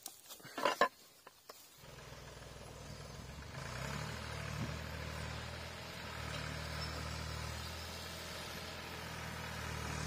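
A few short knocks and rustles as an axe is handled among plants. About two seconds in, a tractor engine takes over, running steadily and picking up a little a couple of seconds later.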